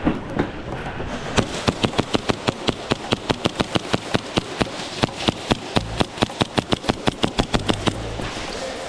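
Airsoft gun firing a rapid string of single shots, about five or six sharp cracks a second for some six seconds, with a few short breaks.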